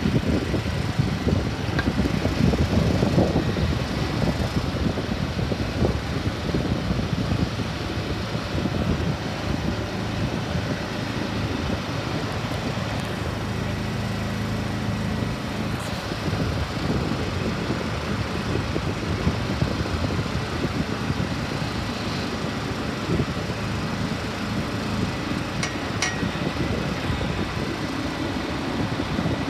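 Small engine running steadily, the power unit of a trailer-mounted pump puller as it feeds flexible drop hose down a well, with a couple of sharp clicks near the end.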